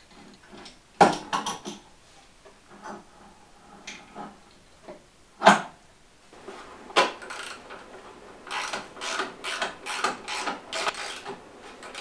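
Hand tools and bolts knocking and clanking while an engine is bolted down to a wooden base. The loudest knock is about a second in and another comes about halfway, then a quicker run of clicks and knocks near the end.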